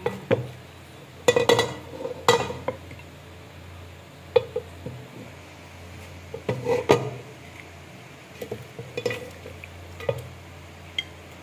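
A wooden spoon scraping and knocking against a metal cooking pot as cooked meat is scooped out, in irregular clusters of knocks a few seconds apart.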